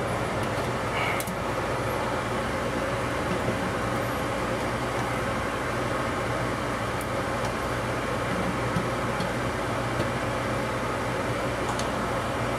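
Steady hum and rush of air from a running fan, with a few faint light clicks.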